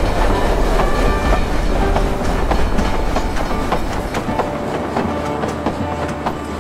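Narrow-gauge train rolling past close by: a heavy low rumble from the wagons, with the wheels clicking over the rail joints, the clicks coming more often as the rumble eases after about four seconds.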